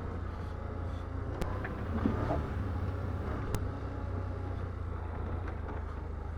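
Can-Am Outlander ATV's V-twin engine running steadily on the trail, with a few sharp knocks.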